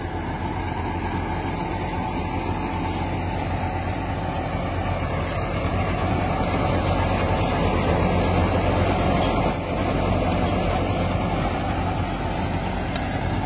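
Farmtrac tractor's diesel engine working steadily under load, pulling a 9-foot Gahir super seeder through untilled paddy stubble, with the seeder working the soil. The drone swells slightly midway.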